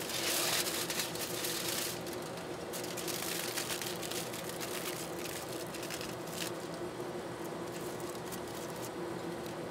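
Aluminium foil crinkling and crackling as it is folded and pressed down by hand over a thermocouple, over a steady low hum.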